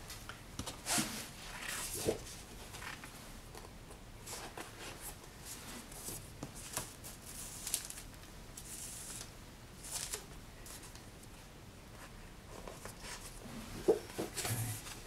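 Heavy black Stonehenge paper rustling and tapping as folded signatures are handled and sewn by hand with linen thread. Scattered short swishes and soft knocks, with a sharper knock near the end.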